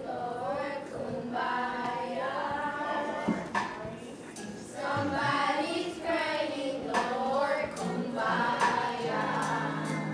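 A children's choir singing a gospel song.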